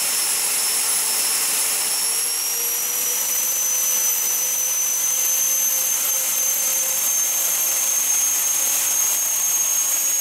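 Several electric ducted fans of a radio-controlled Dornier Do 31 model running together: a steady rushing hiss under a high whine. The whine creeps slowly up in pitch as the fans speed up.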